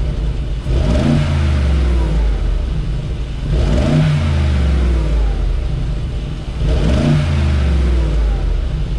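Mercedes-AMG G63's twin-turbo V8 heard through its stock side-exit exhaust, revved three times about three seconds apart, each rev rising and falling back to a steady idle.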